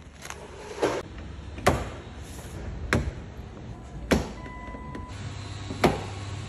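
Car door handle being pulled repeatedly, with five sharp clicks and clunks of the handle and door latch about a second apart.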